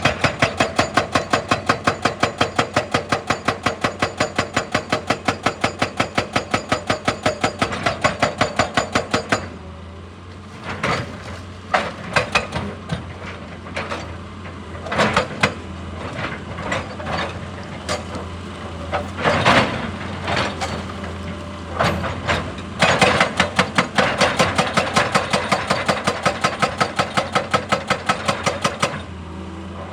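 Excavator-mounted hydraulic breaker hammering rock in a fast, even stream of blows, over the excavator's steady diesel engine. The hammering stops after about nine seconds, leaving irregular knocks and clanks, then starts again about 23 seconds in and runs to near the end.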